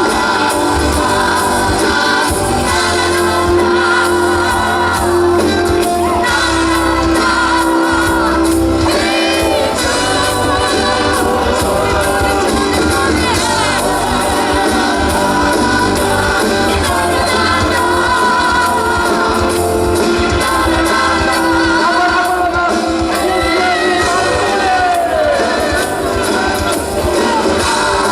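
Live pop song played by a band through a PA, with several singers singing together.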